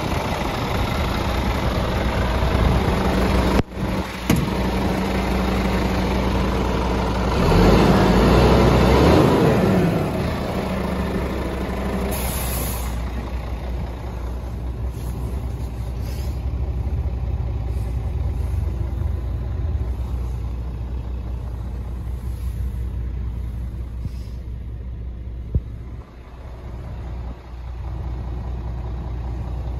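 Scania R410 truck's 13-litre six-cylinder diesel idling steadily, growing louder for a couple of seconds about a quarter of the way in, with a short high hiss near the middle.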